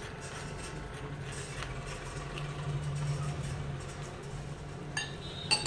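Metal spoon stirring gram-flour batter in a glass bowl as water is poured in from a steel cup, over a low steady hum. Near the end there are two sharp clinks of metal against the glass bowl, the second the loudest.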